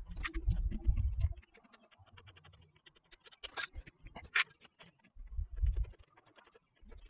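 Scattered light clicks, ticks and scrapes of a gloved hand working at an ATV's speedometer drive housing and cable fitting, with a few dull bumps.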